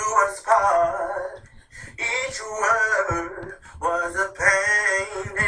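A high, wavering voice vocalising without words, in singing-like phrases of about a second each separated by short pauses.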